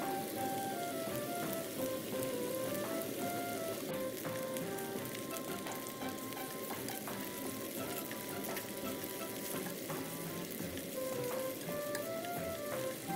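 Red bell pepper strips and garlic sizzling in olive oil in a frying pan, with small clicks as they are stirred and turned with tongs. A light melody of background music plays over the frying.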